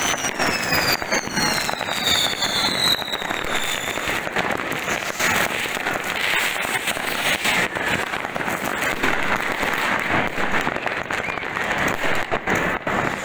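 Fireworks and firecrackers going off all around in rapid, overlapping bangs and crackling. In the first few seconds a whistle falls in pitch.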